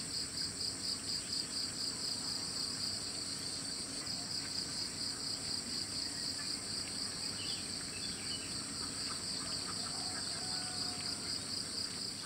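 A steady, high-pitched chorus of insects, one strand pulsing quickly and evenly, with a few faint bird chirps.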